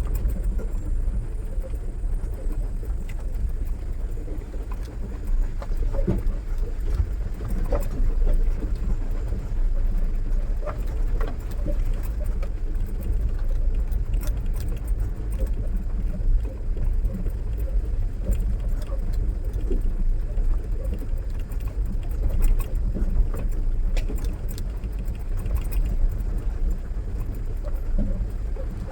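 Mahindra Bolero Pickup driving over a rough off-road track: a steady low engine and road rumble, with scattered short knocks and rattles throughout.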